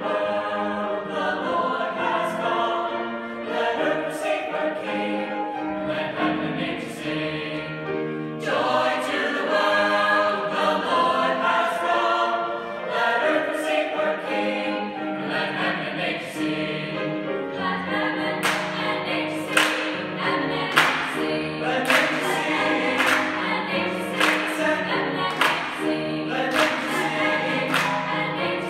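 High school choir singing with accompaniment. About two-thirds of the way through, sharp strokes join in roughly once a second.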